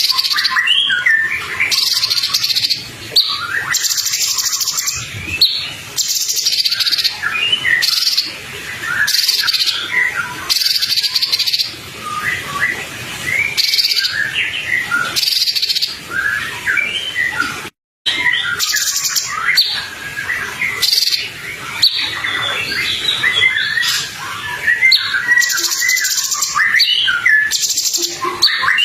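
Songbird masteran recording: a dense run of rapid chirps, twitters and trills from several birds, with repeated buzzy high bursts between them. The sound cuts out for an instant about two-thirds of the way through, like a splice, and the chorus carries on.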